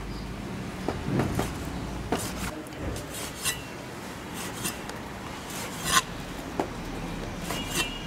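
Cleaver knocking and scraping on a wooden chopping board as pig liver is sliced, in a few irregular strokes, the sharpest about six seconds in.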